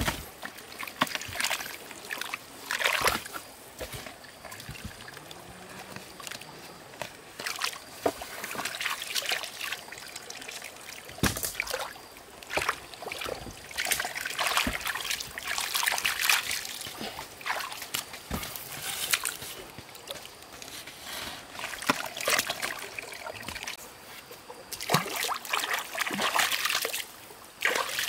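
Shallow, muddy stream water splashing and sloshing in irregular bursts as hands and a stick dig through wet mud in it, with water trickling between the splashes.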